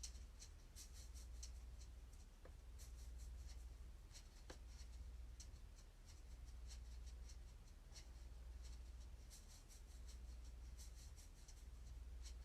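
Near silence: a faint low hum that swells and fades every few seconds, with scattered soft scratchy clicks.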